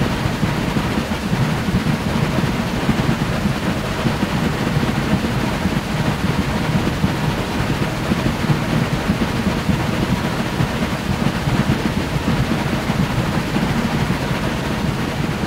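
Steam-hauled passenger train running along the line, heard from an open carriage window: a steady low rumble of the coaches on the track, mixed with wind buffeting the microphone.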